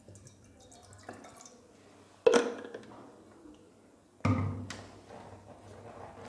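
Water poured into a stainless steel saucepan, then two sharp knocks, about two and four seconds in, each ringing briefly.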